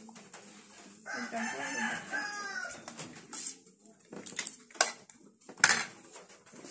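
A rooster crowing once, starting about a second in and lasting about a second and a half, falling in pitch at the end. It is followed by a series of short sharp clicks and smacks from eating and utensils at the table.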